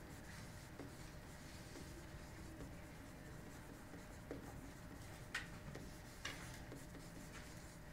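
Faint scratching of writing in a small room, with two light clicks about five and six seconds in, over a low steady room hum.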